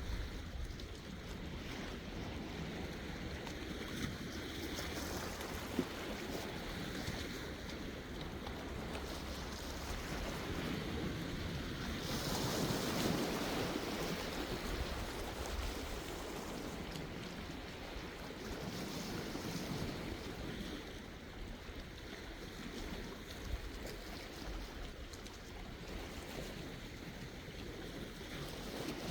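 Sea waves washing onto the shore in a continuous hiss, with one bigger wave breaking and swelling louder about halfway through.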